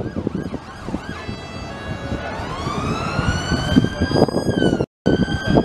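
An emergency-vehicle siren wailing over street traffic: the tone climbs smoothly in pitch, holds high, then starts to fall slowly. The sound drops out completely for a moment near the end.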